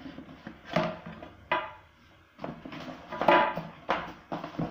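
Hard plastic clicks and knocks, several in a row with a short cluster near the middle, as the spray lance is fitted onto the plastic spray gun of a Total 20 V cordless pressure washer.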